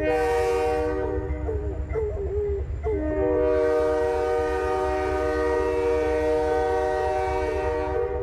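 Freight train's locomotive air horn sounding a steady chord, a short blast at the start and a long one from about three seconds in that stops near the end, over the low rumble of the passing train. Between the blasts a dog howls along with the horn.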